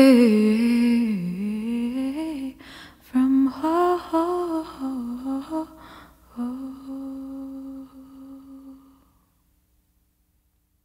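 A woman's unaccompanied solo voice singing wordlessly in wavering, gliding phrases with short breaths between them. It ends on a long held note that fades out about nine seconds in.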